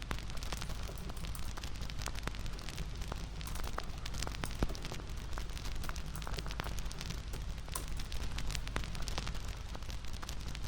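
Bonfire crackling: a steady low rush of flames with many irregular sharp pops and snaps of burning wood.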